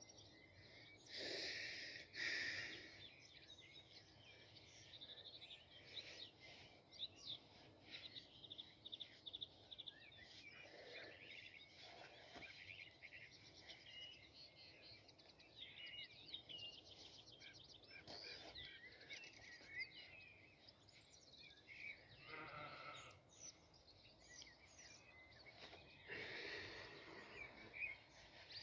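Faint open-air ambience with small birds chirping throughout, broken by a few louder short voice-like sounds: one about a second in and two more near the end.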